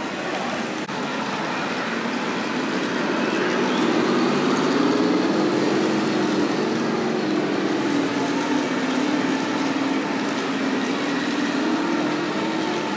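Radio-controlled model tanks driving: a steady motor-and-track running noise with a wavering low hum that swells a few seconds in, then eases slightly.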